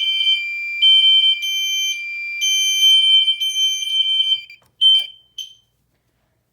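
Two fire alarm horn strobes, System Sensor units, sounding together: one holds a steady high tone while the other, an interrupted 3000 Hz horn, pulses on and off. Both cut off about four and a half seconds in, followed by two short chirps.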